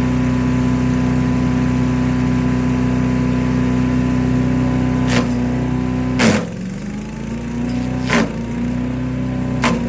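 Predator gas chipper/shredder engine running steadily, then sharp cracks as a branch is chipped, four times. At the loudest crack the engine bogs down under the load and slowly climbs back to speed.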